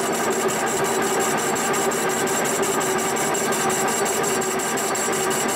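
Milling machine running steadily while its face mill cuts the warped cast-iron mounting flanges of a John Deere 8000 series exhaust manifold flat, with a fast, even ticking from the cutter over a steady hum.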